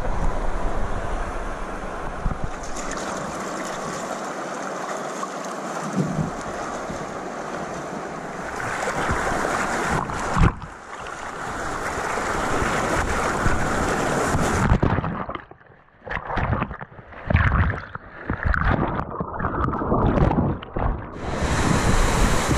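Rushing river water and white-water rapids, a steady loud wash with wind on the microphone, later with splashing against a raft. For several seconds near the end the sound turns muffled and choppy before the rapids come back in full.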